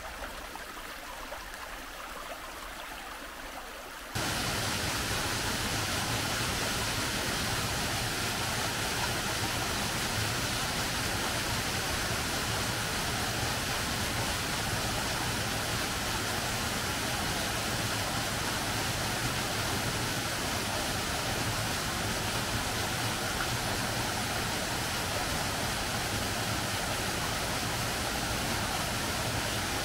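Water rushing steadily along a narrow concrete irrigation channel, an even hiss with no distinct splashes. About four seconds in it gets abruptly louder and fuller.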